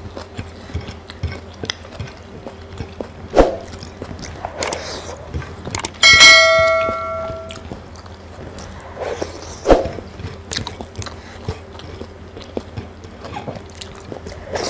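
A bell-like notification chime sound effect, a click followed by a ringing tone, about six seconds in, over quiet sounds of eating with the fingers. There are two sharp knocks, one about three and a half seconds in and one near ten seconds.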